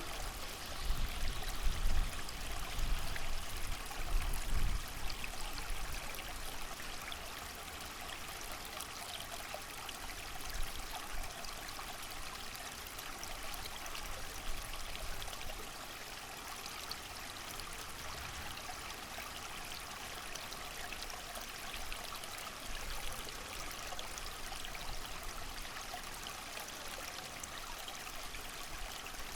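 A small creek running steadily, with low gusts of wind rising and falling in the first few seconds.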